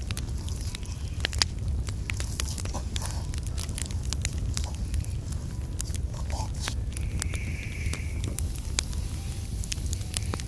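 Hand squeezing and kneading a mashed-potato dough in a metal bowl: soft squishing with many small irregular clicks and crackles, over a steady low rumble.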